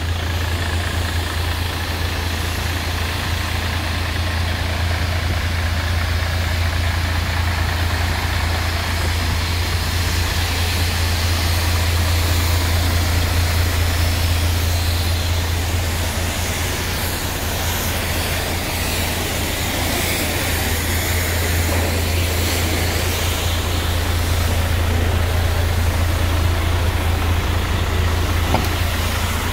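Mercedes-Benz Actros 1843 tractor unit's V6 diesel engine idling steadily.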